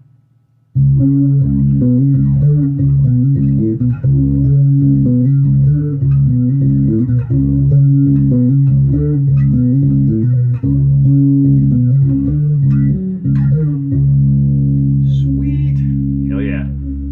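Schecter C4 electric bass played through an amplifier: a run of plucked notes with strong lows, ending on a held note that rings out. The tone comes through steadily without cutting out, a sign that the replaced 9-volt battery connector now feeds the active electronics properly.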